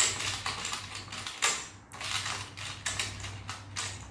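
Small plastic tabletop ball game being played by hand: its levers clicking and plastic balls rattling in quick, irregular clacks.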